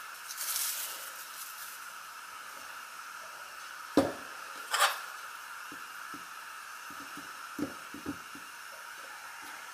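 Cling film crinkling as it is pulled off a plastic cup of frozen homemade ice cream, with a sharp knock about four seconds in and a second crackle of the film just after. Near the end come a few soft taps as a metal spoon digs into the frozen ice cream.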